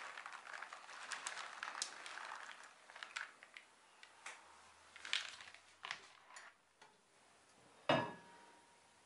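Drained white beans tumbling out of a plastic colander into a cast-iron pot of sauce, a dense rattle for the first three seconds, then scattered clicks as they are stirred in. One sharp knock about eight seconds in, the loudest sound.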